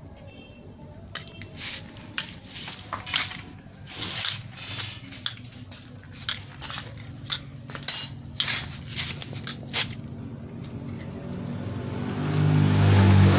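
Homemade miniature truck and trailer being handled on a concrete floor: a string of irregular knocks, clacks and scrapes as the pieces are moved and set down, with a quick rattle partway through. Near the end a low droning hum swells up and becomes the loudest sound.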